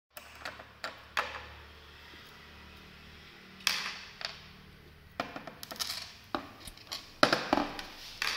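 Small metal parts of a low-profile ratchet being handled and set down on a hard tabletop: scattered light clicks and taps. A few come early, then after a pause of about two seconds they come more often, the loudest one near the end.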